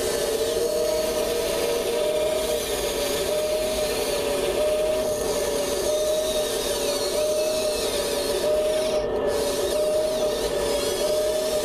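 Kabolite 970 all-electric RC excavator working, its electric servos and gear motors whining steadily at one slightly wavering pitch over a rough mechanical noise.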